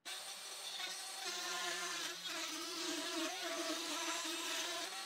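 Bosch trim router running at speed, its bit cutting a circular groove in a wooden board as it is swung around a circle-cutting jig. A steady high whine whose pitch wavers slightly under load; it cuts off abruptly at the end.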